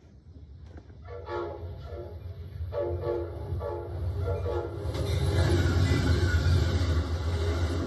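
Amtrak diesel passenger locomotive sounding its horn in several blasts as it approaches, the first one long. Then a loud, steady rumble of the engine and wheels as the train passes close by.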